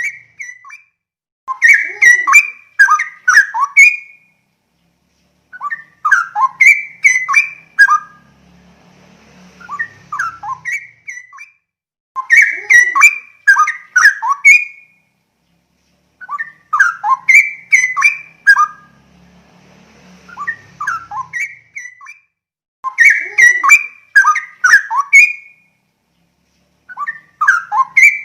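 Straw-headed bulbul singing loud, bubbling whistled phrases of about two to three seconds each, repeated roughly every four to five seconds with short silences between.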